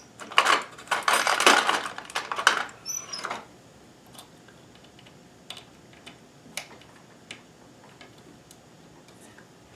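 Small hard objects rattling and clattering for about three seconds while sewing machine needles are rummaged through for a tougher replacement, then a few light, scattered clicks.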